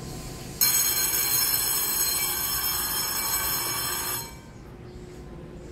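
Station electric bell ringing loudly for about three and a half seconds, starting abruptly about half a second in and cutting off suddenly.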